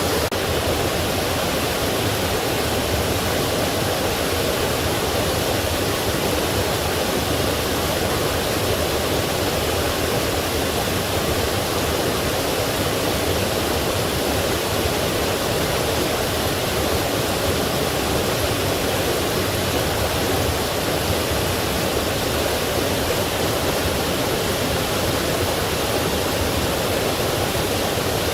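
Forest stream rushing over rocks: a steady, even roar of running water with no breaks.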